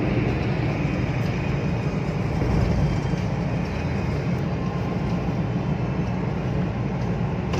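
Steady rumble of a car driving along a road, heard from inside its cabin: engine and tyre noise with no marked changes.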